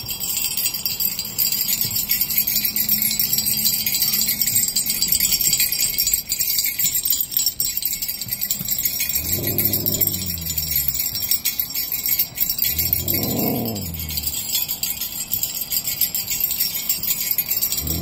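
Sleigh bells jingling without a break while a Siberian husky 'talks' back in two drawn-out vocal calls, about nine and thirteen seconds in, the first falling in pitch and the second rising then falling.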